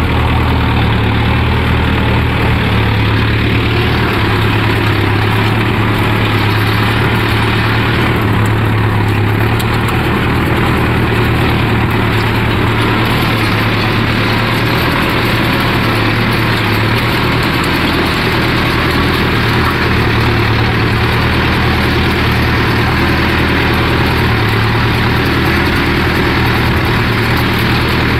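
Farm tractor's diesel engine running steadily under load while pulling a tine cultivator through ploughed soil, heard close up from the driver's seat.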